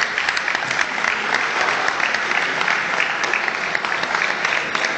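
Crowd of spectators applauding, a steady dense patter of clapping.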